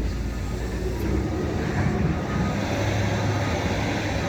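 Engine of heavy earthmoving machinery running steadily, a low drone that grows a little stronger about a second in.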